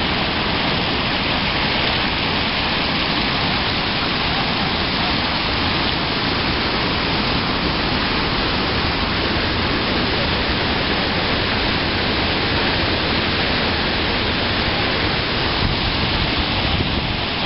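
Steady rushing water of river rapids or a waterfall, an even, unbroken wash of noise.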